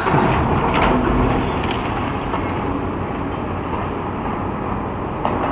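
Demolition excavator tearing into the mall structure: a continuous rumble of machinery and breaking, falling debris, with sharp cracks about a second in and again near two seconds.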